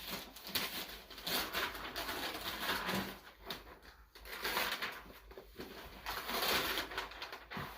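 Wrapping paper being torn and crinkled as a present is unwrapped: irregular rustling and ripping in uneven bursts.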